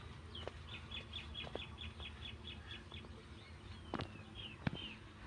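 A bird calling a quick run of about a dozen high, evenly spaced chirps, about four or five a second, then a few more scattered calls. A few sharp clicks and knocks sound over them, the loudest near the end.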